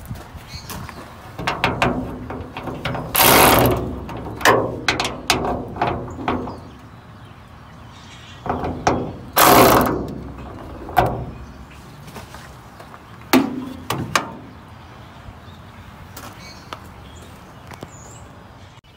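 Cordless electric ratchet running in two short bursts of about a second each, backing out the hood-hinge bolts. Between the bursts there are clicks and metal clinks of the socket and bolts.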